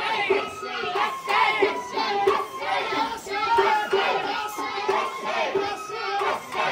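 Japanese festival hayashi music from a parade float, a held flute melody over steady rhythmic percussion, with the crowd's singing and calling voices mixed in.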